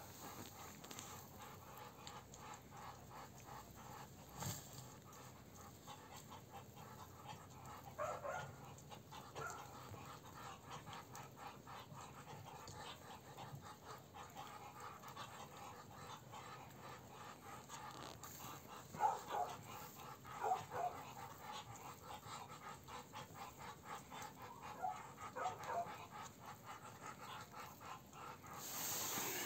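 Muscovy drakes making soft, breathy hissing huffs, in short bouts several times.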